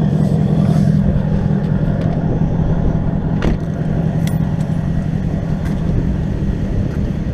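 Car engine idling with a steady low rumble, and one sharp knock about three and a half seconds in.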